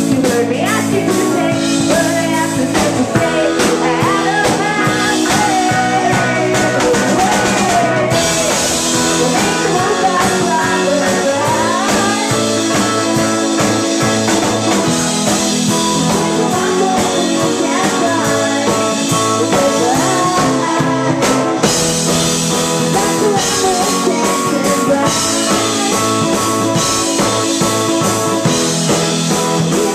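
A small rock band playing live and loud: a woman singing over electric guitar, keyboards, bass and drums. The sound gets brighter about eight seconds in.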